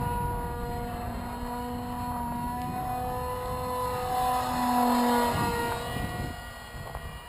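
Electric motor and pusher propeller of an RCPowers F-18 foam RC jet, a steady droning whine in flight that grows louder as the model passes close about four to five seconds in, then drops slightly in pitch and fades. Wind rumbles on the microphone underneath.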